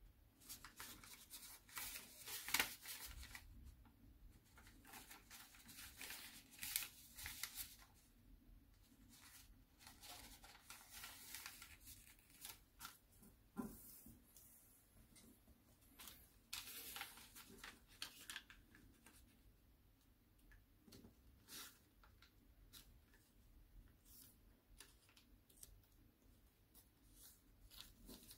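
Sheet of paper being folded and creased by hand: faint, scattered rustles and crisp crinkles, busiest in clusters during the first half and thinning out toward the end.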